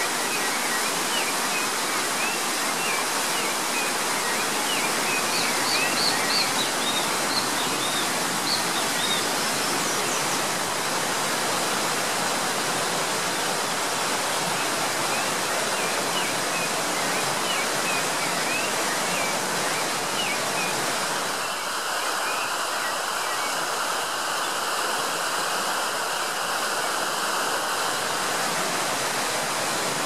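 Mountain stream water rushing and splashing steadily over boulders, with faint short chirps of small birds over the rush in the first third and again past the middle. The tone of the rush shifts slightly about two-thirds of the way in.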